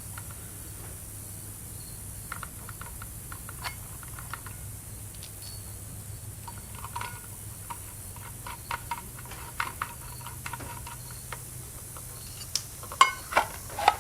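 Small metal clicks and taps of a circular saw's blade and bolt being handled and fitted back in place, scattered irregularly over a faint steady low hum.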